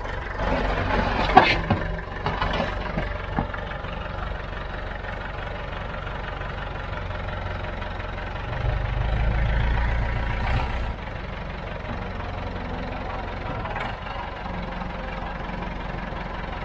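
Tractor engine idling with a steady low hum, running louder for about two seconds past the middle. A few knocks and clanks in the first seconds, the sharpest about a second and a half in.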